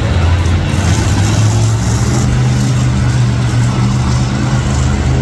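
Monster truck engine running loud, its pitch stepping up about two seconds in and holding there.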